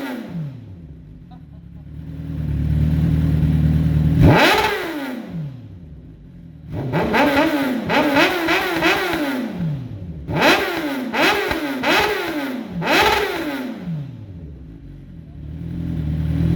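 2007 Suzuki GSX-R 1000 inline-four revved through a cheap Akrapovic-replica slip-on exhaust with the dB killer removed: sharp throttle blips, some single and some in quick runs of three or four, each falling back to a low idle.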